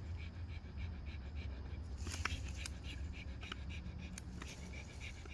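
Pit bull panting quickly and rhythmically, about five breaths a second, over a steady low hum, with a few sharp clicks in the middle.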